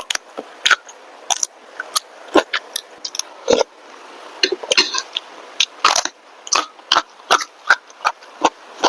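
A person eating close to the microphone: chewing with irregular mouth smacks, about two or three a second.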